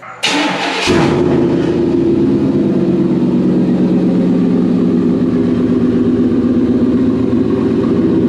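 A 1997 Chevy K1500's 5.7 Vortec V8, breathing through short-tube headers and turbine resonators, cranks briefly and catches about a second in, then idles steadily. This engine has poor leak-down on most cylinders and throws a cylinder 6 misfire code.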